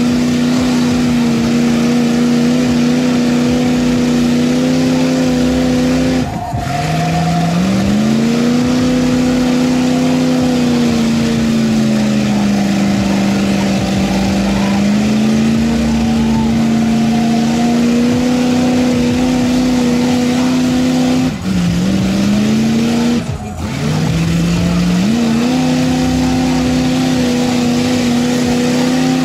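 Mud truck's big exposed engine held at high revs as its giant lugged tyres churn through deep mud. The revs dip briefly and climb back about six seconds in, then twice more later on.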